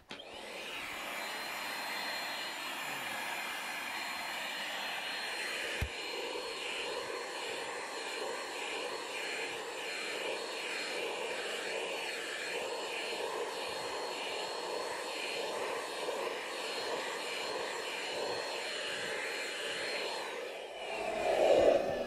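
Small vacuum cleaner switched on and running steadily with a thin high whine while its nozzle is drawn over a cat's coat to pick up loose fur; it is switched off and winds down near the end. A single click about six seconds in.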